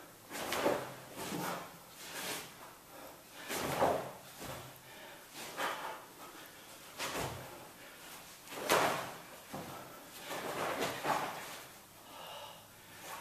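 Movement sounds of a barefoot karate kata: feet stepping, stamping and sliding on the mat and the uniform swishing with strikes, in short bursts every second or two.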